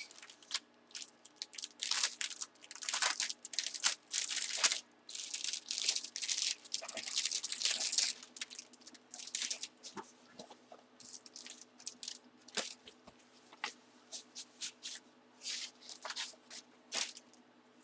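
Plastic packaging crinkling and rustling as a trading card is handled and pulled out, in irregular short bursts with a longer stretch of rustling about five to eight seconds in.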